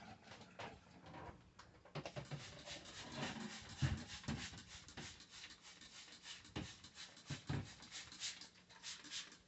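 Vinegar-wetted cloth rag scrubbing the inside walls of a microwave oven in quick, irregular strokes, with a few dull knocks against the cavity.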